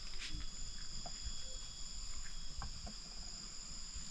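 Insects droning in the background, a steady high buzz, with a few faint knocks.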